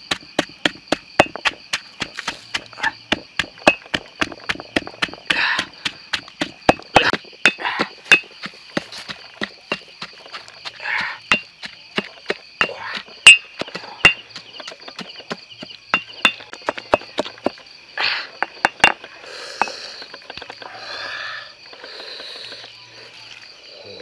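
Stone pestle pounding chilies, garlic and salt in a granite mortar: sharp knocks, two to three a second, stopping about 19 seconds in, followed by softer scraping and handling. Insects trill steadily in the background.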